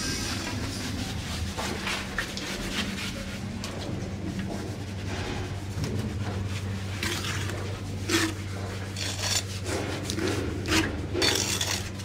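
A hand tool scraping and rubbing in irregular strokes over a steady low hum; the scrapes come thicker and louder in the last few seconds.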